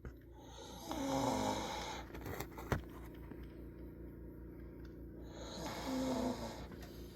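Snoring: two long snores about five seconds apart, the first starting about a second in and the second near the end, each with a low droning tone. Between them comes a single sharp click.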